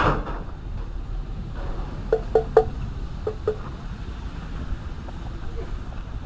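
Steady low outdoor rumble with a dull knock at the start, then five short ringing metallic clinks: three in quick succession about two seconds in and two more about a second later.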